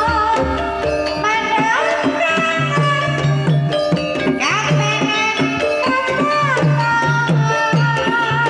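Banyumasan tayub gamelan music: a female sindhen sings gliding, ornamented vocal lines over ringing metallophone tones and steady hand-drum strokes.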